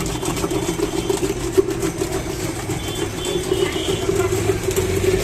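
A motor running with a steady hum.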